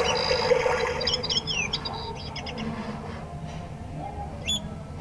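Recorded birdsong played by an alarm clock's nature-sounds mode: rapid chirps and short whistled glides through the first half, thinning out, with one more sharp chirp near the end.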